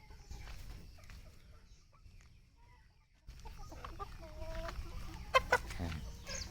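Desi chickens clucking in short calls, with a few sharp clicks about five seconds in.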